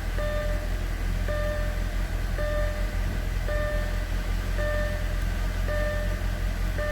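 2007 Audi A4 engine idling roughly with a misfire, the owner traces it to a vacuum leak at the PCV valve. A three-tone warning chime beeps steadily about once a second over the idle.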